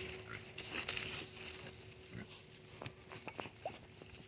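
Pigs rooting through dry leaves and soil: faint rustling and crackling, with a soft grunt about halfway through.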